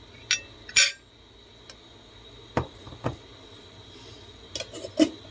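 Metal cutlery clinking against a plate during a meal: a handful of separate sharp clinks, with a quick cluster of them near the end.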